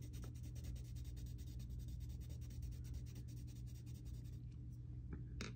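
Derwent Lightfast coloured pencil rubbed quickly back and forth on paper, a fast even run of short strokes shading a colour swatch, which stops about four and a half seconds in. A couple of light taps follow near the end.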